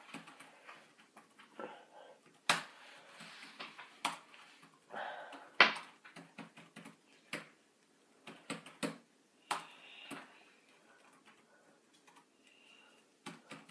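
Rustling of a fabric scarf against hair as it is tied around a head for a blindfold. Light clicks and handling knocks come at irregular moments, fading out in the last few seconds.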